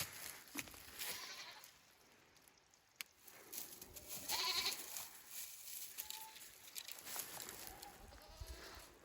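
Goats bleating: a few short calls, the loudest about four seconds in and fainter ones after it.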